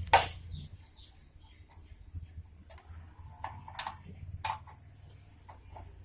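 Scattered metallic clicks and taps of a spanner working the bolts of a motorcycle's chain cover, with one sharp, louder click right at the start.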